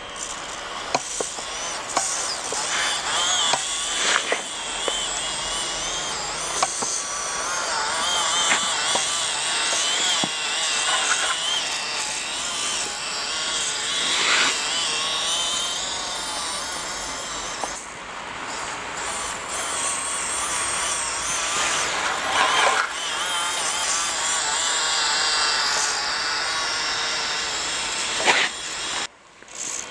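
Reely 1/24 micro crawler RC car's small electric motor and gears whining as it drives through snow, the pitch rising and falling with the throttle, with scattered clicks. The sound cuts out briefly near the end.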